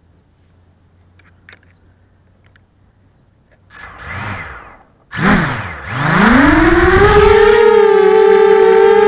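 FPV quadcopter's electric motors and propellers, heard through the drone's own camera. A few light clicks at first, then a short throttle blip about four seconds in that rises and falls. Then the motors spool up again and settle into a loud, steady whine as the drone lifts off and flies.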